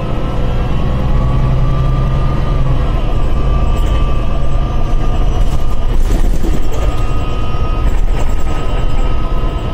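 MAN Lion's City articulated diesel bus with a Voith automatic gearbox, heard from inside the passenger cabin: a deep, steady engine and drivetrain rumble with a high whine over it. Brief rattles from the bodywork come through about six seconds in.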